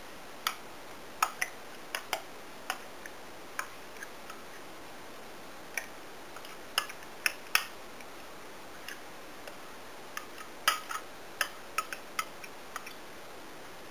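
Kitchen handling sounds as blocks of cream cheese are unwrapped and put into a mixing bowl: irregular sharp clicks and light taps, about twenty of them, over a steady faint hiss.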